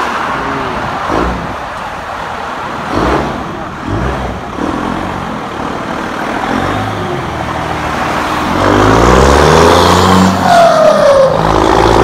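Turbocharged Dodge Ram pickup accelerating hard from a pull-out, its engine revving up loudly about two-thirds of the way in. About two seconds later there is a falling whistle from the turbo's blow-off valve.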